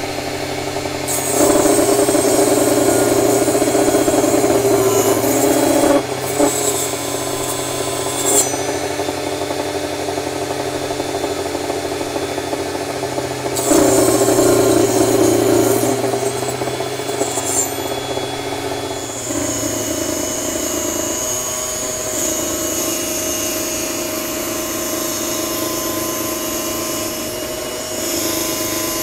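Minleaf ML-MS1 mini table saw running, its small fixed-height blade cutting through 9 mm fir. There are three louder cutting passes of a few seconds each in the first half, with the motor running steadily between them. From about two-thirds of the way in the saw runs on with a changed, steadier tone.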